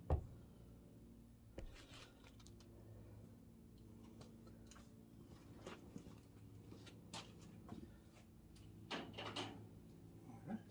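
A few scattered knocks and clunks of handling and moving about, the loudest at the very start and a cluster near the end, over a faint steady low hum.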